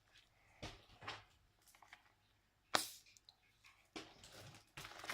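Scattered handling noises: brief rustles and crinkles, with one sharp click almost three seconds in.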